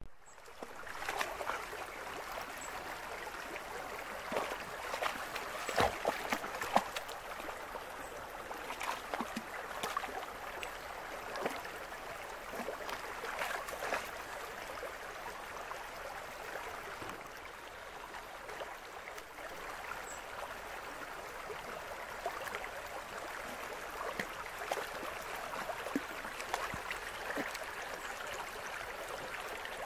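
Shallow stream running steadily over rocks, with scattered sharp splashes from a dog's paws wading through the water, most of them in the first half.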